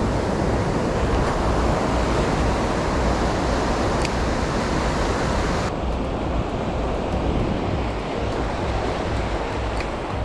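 Small waves breaking and washing up the sand in a steady rush, with wind rumbling on the microphone. The high hiss of the wash turns duller suddenly about halfway through.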